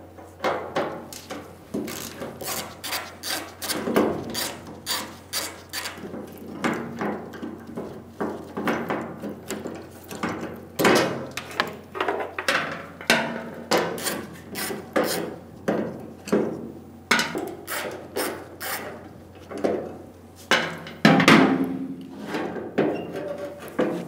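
Ratchet wrench clicking in short strokes as it backs out a tailgate cable bolt, with metal clinks and knocks of the bolt and tailgate parts being handled; a louder clunk comes near the end.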